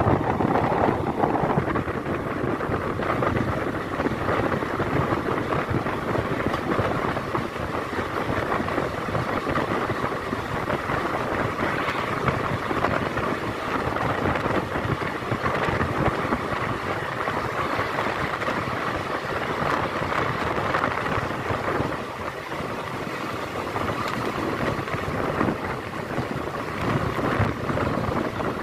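Passenger train running steadily on the track, heard from an open coach doorway: an even rumble and rush of wheels on the rails and air going past.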